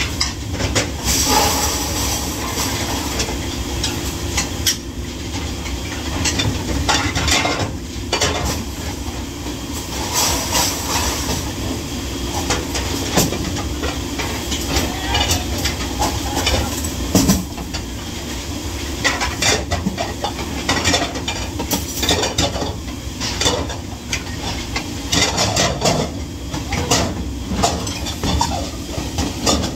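Dishes, pots and cutlery clattering during dishwashing: irregular clinks and knocks over a steady low rumble.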